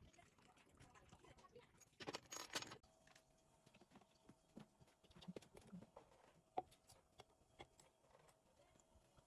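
Near silence: faint scattered clicks and taps, with a brief rustling noise about two seconds in.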